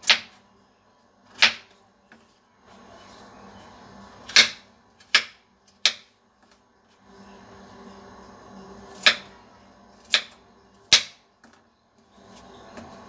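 Kitchen knife cutting peeled raw potatoes on a wooden chopping board: about eight sharp knocks of the blade hitting the board, spaced unevenly a second or more apart.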